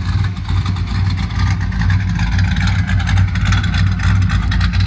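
Built 350 small-block V8 of a 1979 Chevy C10 pickup idling steadily, a low even drone from the engine and exhaust.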